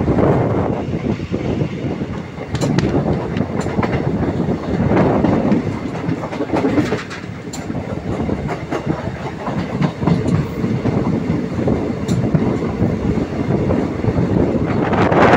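Passenger train coaches running along the track, heard from an open door or window: a steady rumble of wheels on rail with a few sharp clicks as the wheels pass rail joints.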